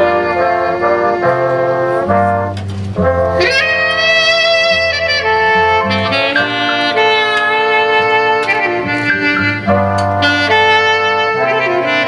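Jazz big band playing live: a saxophone and brass section sounding full ensemble chords over an upright bass line, with a short break about three seconds in followed by a rising swoop into held horn chords.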